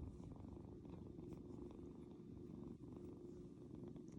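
A Scottish Fold kitten purring, a steady, soft low rumble heard close up.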